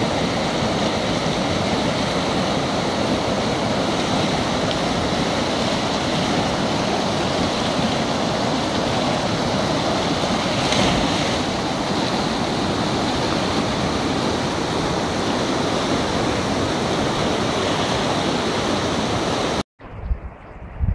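Thames floodwater pouring through the gates of Hurley weir, a loud, steady rush of white water from a weir that is only just coping. It cuts off abruptly near the end.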